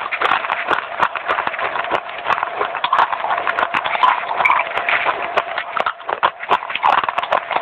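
Dry baked clay being crunched and chewed close to the microphone: a fast, continuous crackle of small crunches.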